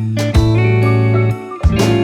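Background music led by guitar, with sustained notes and a bass beat.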